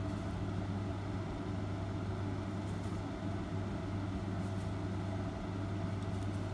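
Steady low mechanical hum, like a fan or motor running in the room, with a few faint soft clicks of handling.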